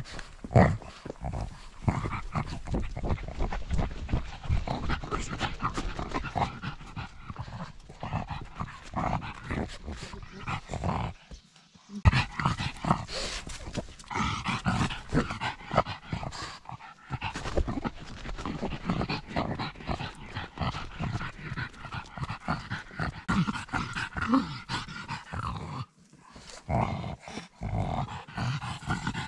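A pug breathing hard and noisily as it hikes, heard very close from a camera mounted on its harness; the breathing has the snuffling, snort-like quality of a flat-faced breed. It breaks off briefly twice, about eleven seconds in and again near twenty-six seconds.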